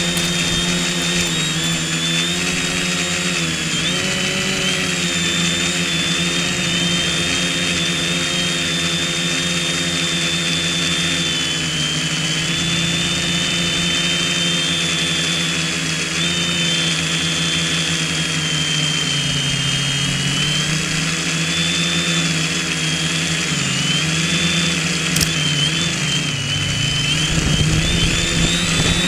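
Quadcopter's four electric motors and propellers whining steadily in flight, heard close from the onboard camera. The pitch wavers up and down a few times as the throttle changes.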